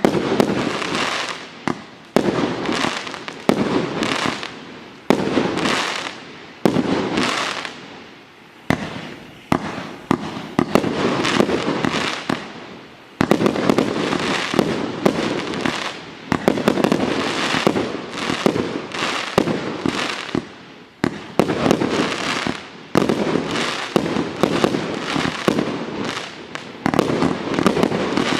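A 108-shot 1.2-inch firework cake firing, each shot a sharp bang with a fading noisy tail. The shots come about a second apart at first, then faster and overlapping from about halfway.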